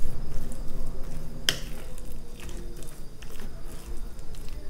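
A fork mixing and mashing a thick banana and oat mixture on a plate: soft squishing with light clicks of the fork on the plate, and one sharper click about a second and a half in.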